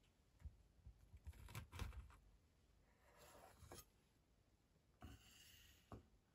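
Knife cutting through the crisp, buttery shortcrust of a strawberry tart on a wooden board: a string of soft crunches and knocks, loudest around two seconds in. Then two short scraping strokes, each ending in a knock, as a metal cake server slides under a slice.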